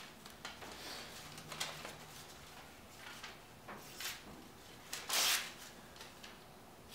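Hand-forged 52100 steel knife slicing paper in several short strokes, the longest and loudest about five seconds in. The edge has been dulled by some 300 cardboard cuts and is only just cutting the paper.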